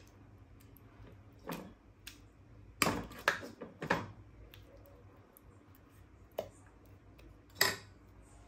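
A metal spoon clinking and scraping against a cooking pot and a stainless steel bowl as thick tomato curry is served out: about half a dozen short knocks, spread unevenly.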